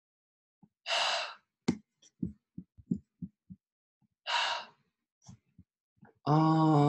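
A man's breath and voice: two short breathy exhales about three seconds apart, with a run of faint soft clicks between them, then a held, steady-pitched voiced sound near the end.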